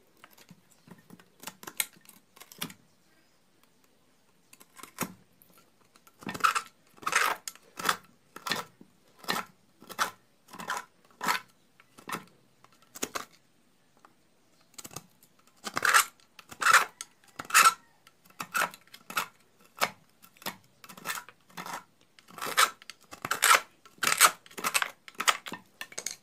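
A flat-head screwdriver scraping caked dirt out of the suction port of an electric water pump: repeated short metal-on-metal strokes, about one or two a second, lighter at first and harder from about six seconds in, many with a slight metallic ring. The dirt clogging the port is what has jammed the pump's rotor.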